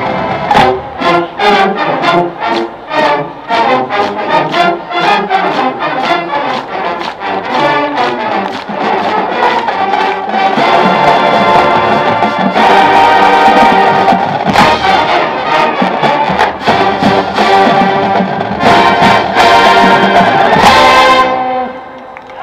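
Marching band with brass and percussion playing: a fast passage of short, punchy notes for the first several seconds, then long, loud held chords. The music cuts off about a second before the end.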